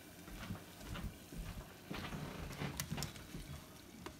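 Faint crackle of hot oil in a small electric deep fryer just after a batch of hush puppies is lifted out, with a few scattered sharp pops and some soft low knocks.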